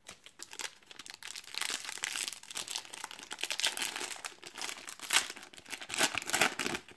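Foil wrapper of a Donruss trading-card pack crinkling as it is handled and torn open by hand, with a run of crackling that swells several times.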